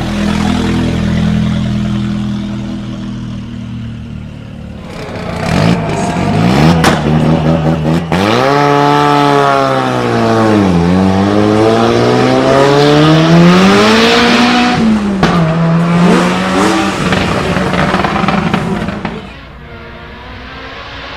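Turbocharged Ford Sierra Cosworth engine running steadily, then revving hard and pulling away from about five seconds in, with sharp cracks from the anti-lag system. The engine note falls and rises several times as it goes, and it drops away suddenly near the end.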